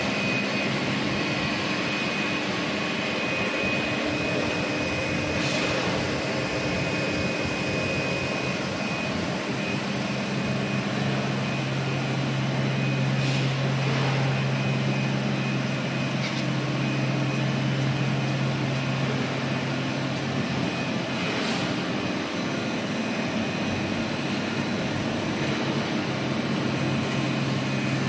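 Steady machinery noise of a running rubber extrusion and vulcanization line, its fans, motors and conveyors making a constant whooshing hum. A low hum grows much stronger about a third of the way in, and a few faint clicks come through.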